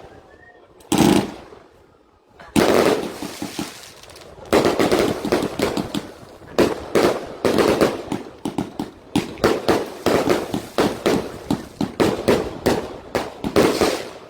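Fireworks and firecrackers going off: a couple of separate loud bangs, then from about four seconds in a rapid, nearly continuous string of bangs and crackles.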